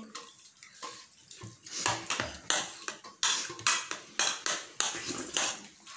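Stainless steel plate clinking and scraping as rice is mixed and scooped on it by hand: a quick, irregular run of sharp clatters that starts about a second and a half in.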